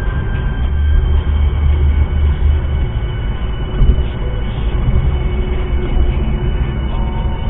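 Steady road and tyre rumble of a car at highway speed, heard inside the cabin, deep and continuous, with a faint thin high whine running through it.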